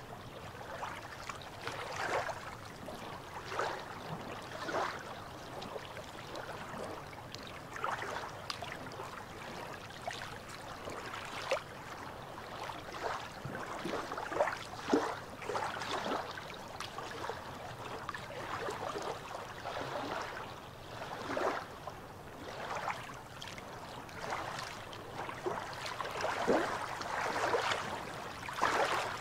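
Small waves lapping and sloshing against shoreline rocks in calm sea water, with irregular splashes every second or two.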